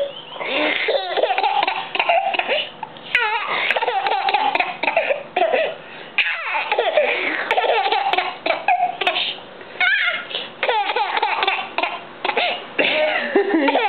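People laughing in long fits, with a few short breaks.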